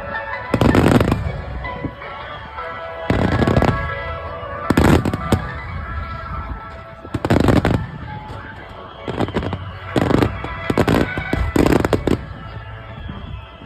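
Aerial firework shells bursting: about nine loud booms at uneven intervals, each trailing off in a short rumble, over continuous music.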